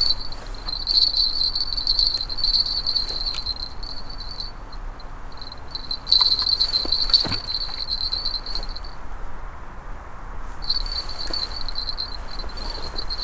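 A small bite bell on the rod tip jingling continuously as the rod is held and moved, falling silent twice for a second or two. A short knock about seven seconds in.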